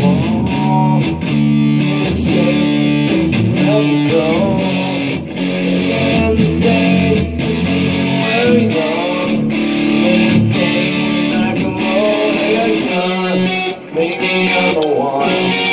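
Guitar playing an instrumental passage of strummed and picked chords with held low notes, without singing; the sound briefly drops away near the end before the playing resumes.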